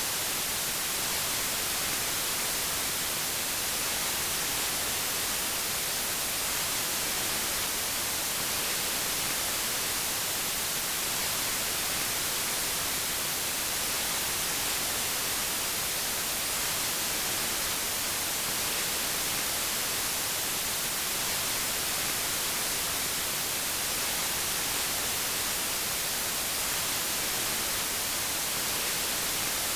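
Steady synthetic white noise, an even hiss that does not change, strongest in the treble.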